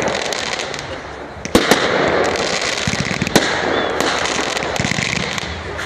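Fireworks going off: a dense, continuous crackle, with sharp bangs about one and a half seconds in and again a little past the middle.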